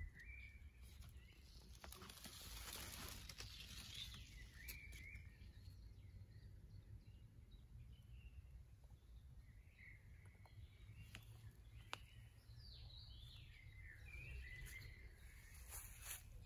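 Quiet garden ambience: birds chirping faintly now and then over a low steady rumble, with a few faint clicks.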